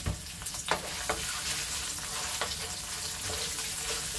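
Garlic, ginger, curry leaves and whole spices sizzling in hot oil in a non-stick wok as they are tempered. A wooden spoon stirs them, knocking against the pan now and then.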